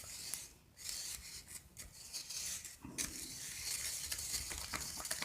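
A utensil scraping and rubbing inside a container as the shampoo slime mixture is stirred: an irregular scratchy scraping that pauses briefly twice.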